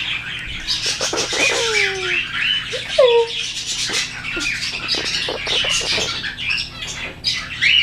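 Many caged pet birds chirping and squawking at once, with a few clear whistles that slide downward in pitch about one to three seconds in.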